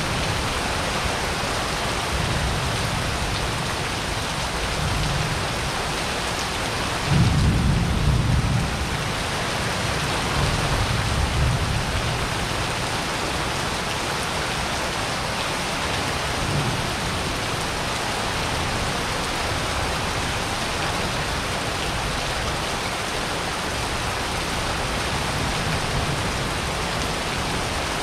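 Steady heavy rain during a thunderstorm. A loud rumble of thunder comes about seven seconds in, and fainter rumbles follow a few seconds later.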